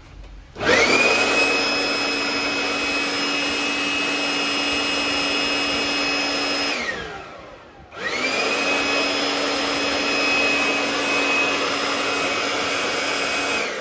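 Makute PB008 3800 W electric blower, a brushed motor driving a fan, run twice: it spins up with a rising whine, runs steady for about six seconds, winds down with a falling whine, then starts again about eight seconds in and runs steady until it begins to wind down at the very end.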